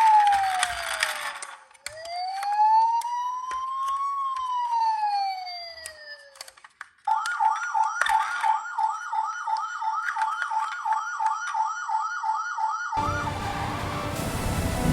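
Emergency-vehicle siren: a slow wail rising and falling over a few seconds, then from about seven seconds a fast yelp repeating about three times a second. Near the end it cuts off abruptly into music.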